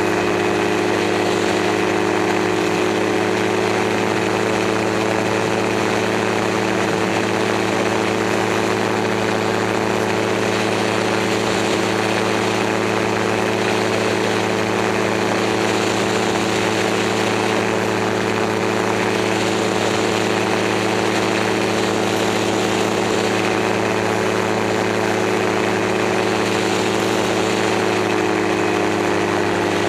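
Gyroplane's engine and propeller running steadily in flight, heard on board the aircraft. The engine note drops slightly near the end.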